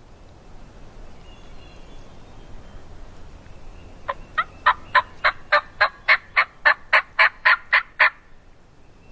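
Hen turkey yelping: a fast, even run of about fourteen loud, short yelps, starting about four seconds in and lasting some four seconds.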